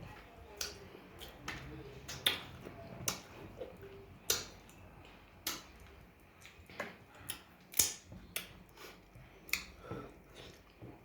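Close-miked eating sounds: irregular wet mouth clicks and smacks while chewing, about one or two a second.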